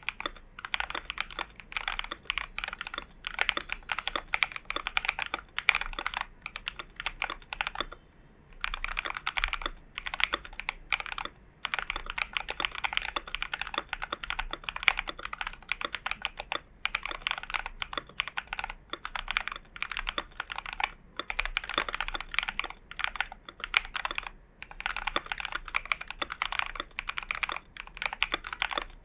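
Continuous fast typing on a Glorious GMMK Pro mechanical keyboard with lubed and filmed switches and PBT dye-sub keycaps: a dense run of keystroke clacks, broken by short pauses about eight, eleven and twenty-four seconds in.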